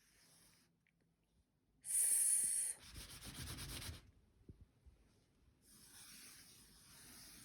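A fingertip tracing a letter in a thin layer of flour on a metal baking tray: soft rubbing, scraping strokes, with a louder rustling scrape about two seconds in and a gentler stroke near the end.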